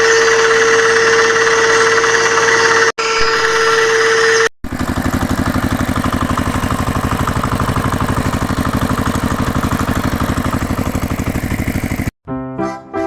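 Small electric motor of a homemade model machine whining with a steady high tone. After a cut it gives way to a lower, fast and even pulsing machine sound, which stops abruptly near the end.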